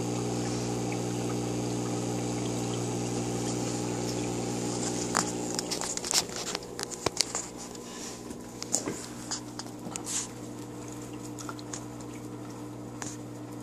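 Aquarium air pump humming steadily, with water bubbling in the tank. From about five seconds in there is a scatter of sharp clicks and soft taps.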